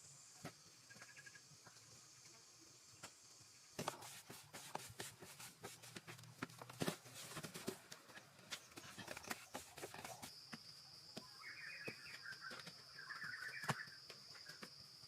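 Steady high insect buzz with short bird chirps now and then. For several seconds in the middle, a run of rapid clicks and knocks, like hand work on wood, stone or earth.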